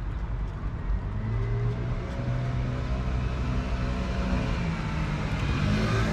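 Motor vehicle engine running close by: a steady low rumble that shifts in pitch and grows slightly louder toward the end.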